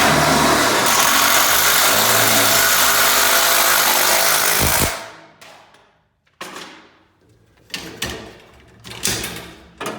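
An electric motor runs steadily and loud, with a low hum, for about five seconds and then stops, followed by a few short knocks and clicks.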